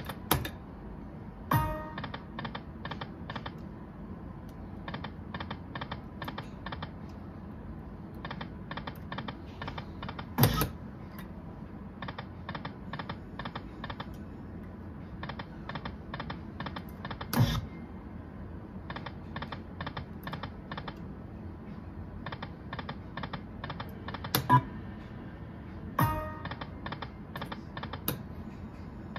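Aristocrat Dragon Link Golden Century pokie machine spinning: each spin ends in a quick run of clicks as the reels stop one after another, repeating about every three seconds. A louder knock comes three times, and a short chime sounds near the end.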